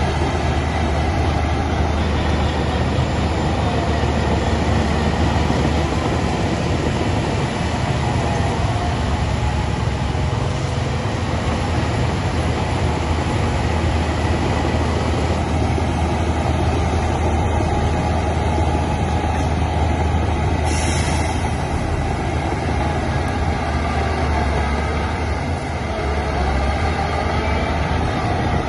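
Heavy diesel earthmoving machinery running steadily: a deep continuous drone with dense mechanical clatter over it. A short high hiss about three-quarters of the way through.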